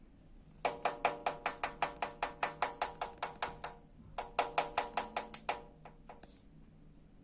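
Cockatiel rapping its beak against a hard, ringing object, about five quick knocks a second. One long run is followed by a shorter one after a brief pause.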